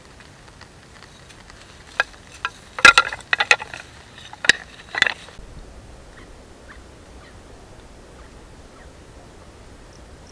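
A quick, irregular series of sharp wooden and metal clacks and knocks from a wooden bow saw being handled, loudest about three seconds in and over by about five seconds. Then only faint insect chirps.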